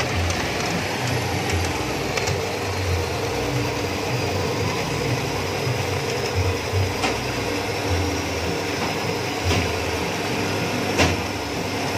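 Electric-motor-driven sago separator running, its grating disc shredding sago trunk into pulp while water washes the starch out: a steady mechanical rattle and rasp with a few sharp clicks in the second half.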